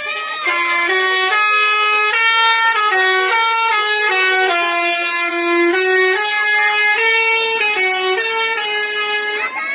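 Basuri telolet multi-note air horn playing a tune: a run of held notes stepping up and down, each about a third to half a second long, over a steady airy hiss. It starts about half a second in and stops just before the end.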